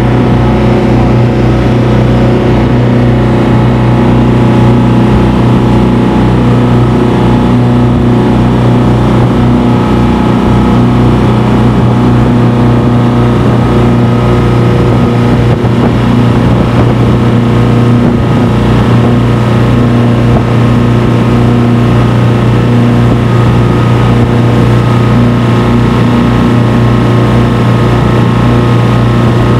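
An engine running steadily at a constant speed, a loud, even low hum with a fast throb underneath.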